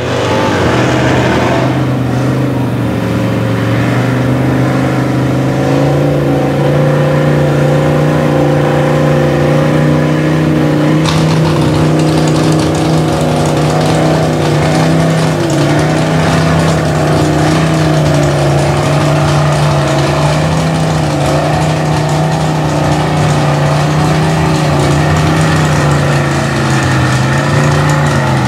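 Engine of a lifted mud truck running steadily at idle, its deep pitch wavering only slightly.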